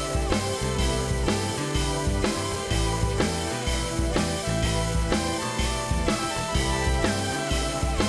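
Background music with a steady drum-kit beat, about two beats a second, over a bass line.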